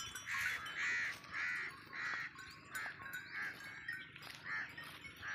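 A bird calling over and over: short calls a little under twice a second, with a brief pause about four seconds in.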